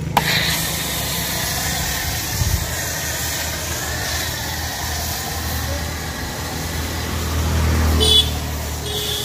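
Pressure-washer foam lance spraying touchless shampoo onto a mud-caked tractor wheel: a steady hiss of spray that starts abruptly, over a low steady hum.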